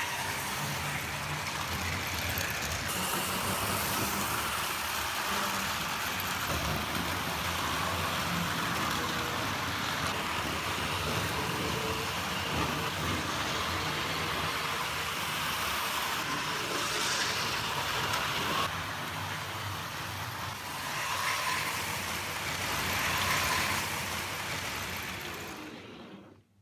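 Tri-ang R.159 model diesel locomotive and its train running along the track: a steady motor and wheel noise that cuts out near the end.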